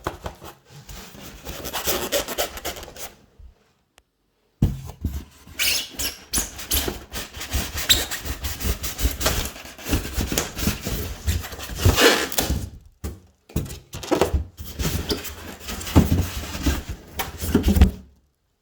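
Cardboard shipping box and packing being opened and handled: irregular scraping, rubbing and rustling with a few short pauses.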